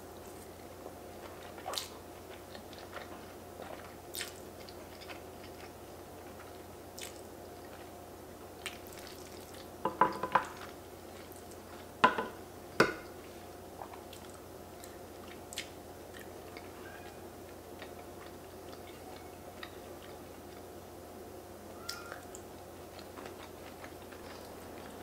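Soft eating sounds: chewing a mouthful of fettuccine, with scattered light clicks of a metal fork against a ceramic plate. There are a few louder short sounds about ten seconds in and again about twelve to thirteen seconds in.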